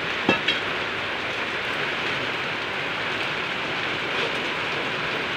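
Steady rushing noise, with two sharp metallic clicks in the first half second from the homemade lever bender and the galvanized sheet being folded into ridge roll.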